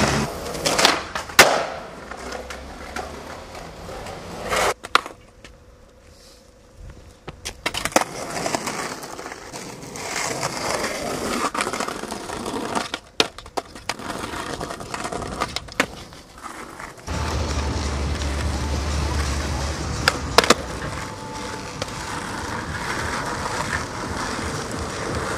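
Skateboard wheels rolling over rough concrete and asphalt, broken several times by sharp clacks of the board popping and landing.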